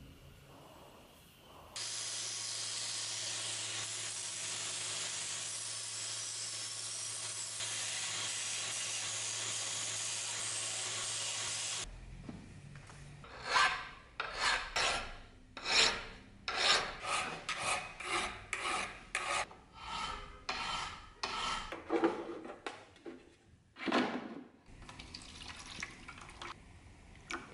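A machine running steadily with a low hum for about ten seconds. Then a hand file rasps across the steel of an old mortise chisel, about twenty strokes at roughly two a second. Near the end comes a faint trickle of water being poured onto a wet sharpening grinder's stone.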